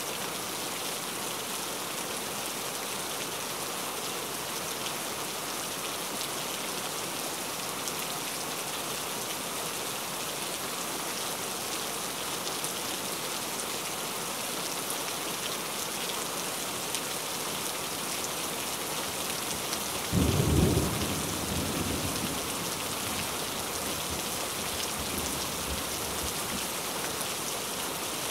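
Steady rain falling. About twenty seconds in, a sudden low rumble of thunder breaks in, the loudest sound here, and dies away over a few seconds.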